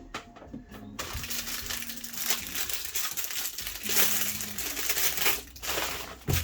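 Plastic packaging crinkling and rustling as items are unwrapped by hand, in one long stretch starting about a second in and a brief second burst near the end.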